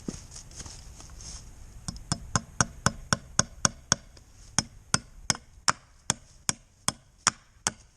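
Hammer driving nails into wood: a run of about eighteen sharp blows starting about two seconds in, quick at first, then after a short pause slower and evenly spaced.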